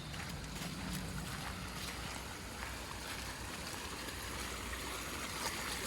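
Steady rush of running water from a small stream swollen by heavy rain, with a few faint clicks over it.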